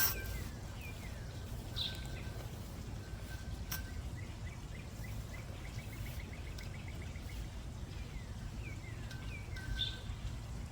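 Wild birds calling: several short downward-sliding chirps, and in the middle a quick trill of about six evenly repeated notes a second, over a steady low rumble. A sharp click sounds right at the start, and a smaller one about four seconds in.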